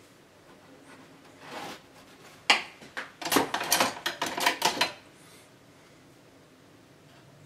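Kitchen knife clinking and scraping against a hard surface: a quick run of about ten sharp strokes over two seconds, starting about two and a half seconds in, after a brief soft scrape.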